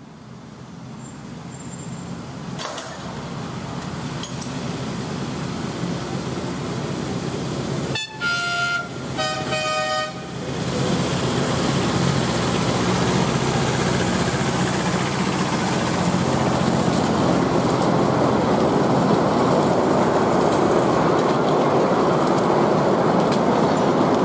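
Miniature railway diesel locomotive and train approaching, its running noise growing louder as it nears. About eight seconds in it sounds its horn twice in quick succession, the second blast holding two notes together, then the train runs on loudly past at close range.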